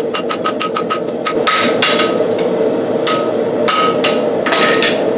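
Power hammer striking hot 1075 steel to draw down the bar, each blow ringing sharply: a fast even run of about seven blows a second stops about a second in, followed by several separate heavier blows.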